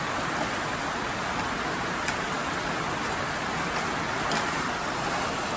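Heavy rain falling, a steady even hiss, with a couple of faint clicks.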